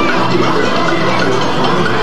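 Parade music playing loudly and steadily.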